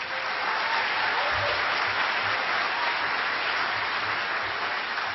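Audience applauding, a steady clapping that eases slightly near the end.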